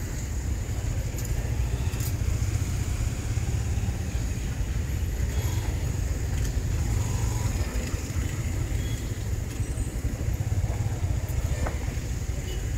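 Steady low road rumble of a motorcycle ride through city traffic.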